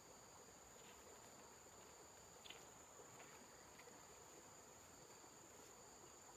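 Faint, steady high-pitched drone of insects, held at two fixed pitches, with a few faint ticks, the loudest about two and a half seconds in.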